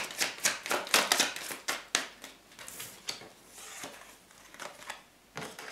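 A deck of tarot cards being shuffled by hand: a quick run of card flicks and slaps, about five a second, for the first two seconds, then quieter handling of the cards with a few soft clicks.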